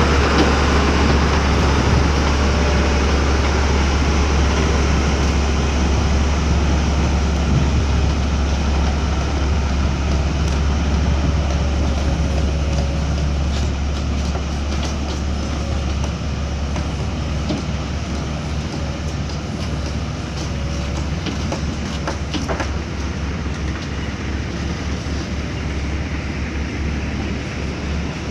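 Backhoe loader's diesel engine running steadily under work, a strong low drone with a few short knocks and clanks from the machine about three-quarters of the way in.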